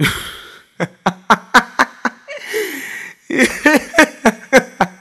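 A man laughing hard, in quick repeated 'ha' bursts of about four a second, with a long laugh falling in pitch in the middle.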